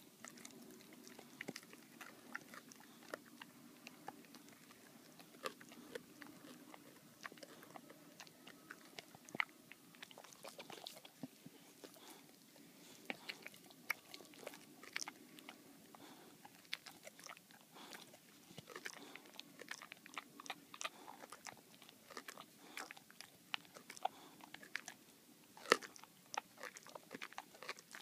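Boxer dog gnawing and chewing a bully bone: a steady run of irregular clicks and crunches from teeth working the chew, with one louder crack near the end.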